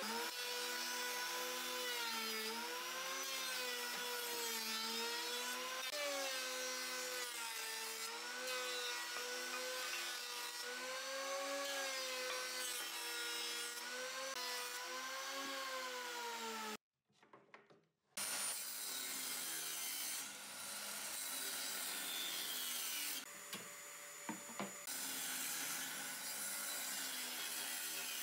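Combination jointer-planer running, its motor whine dipping and recovering in pitch again and again as boards are fed through the cutterhead. After a brief break about two-thirds in, a steadier hiss with a few sharp knocks.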